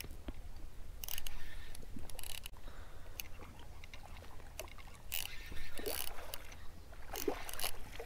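Gusty wind rumbling on the microphone, with small waves lapping at the shore and a few faint clicks.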